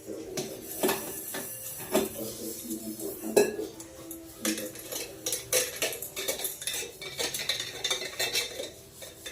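Metal kitchen utensils and pots clinking and clattering in a string of irregular knocks.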